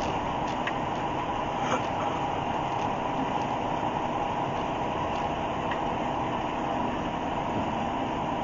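A truck's engine and road noise heard steadily from inside the cab while driving, with a few faint ticks.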